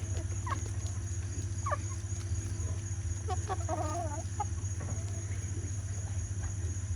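Chickens clucking in short calls, with a brief flurry of several calls together near the middle. A steady low hum and a thin high whine run underneath.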